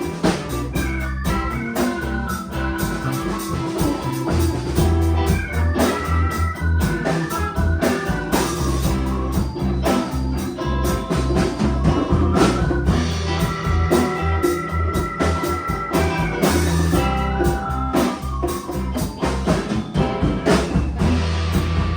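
A live band playing an instrumental stretch of a song: drum kit, bass and keyboard, with steady drum hits under held low notes and melodic lines.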